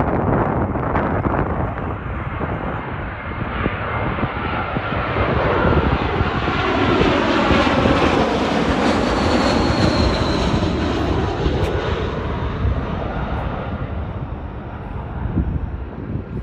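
Jet noise from an Airbus A320 airliner's twin turbofan engines as it passes low overhead on landing approach, gear down. The sound swells to its loudest about two-thirds of the way in, with a faint high whine and a sweeping hiss at the peak, then fades as the plane moves away.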